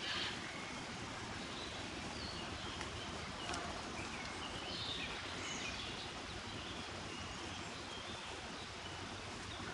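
Countryside outdoor ambience: a steady background hiss with scattered short, faint bird chirps and one small click a few seconds in.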